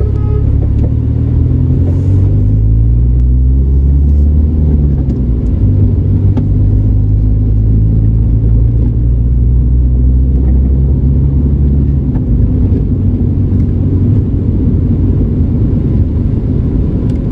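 A car's engine and road rumble heard from inside the cabin while driving. It is a loud, steady low drone, and the engine note rises and falls several times as the car speeds up and eases off.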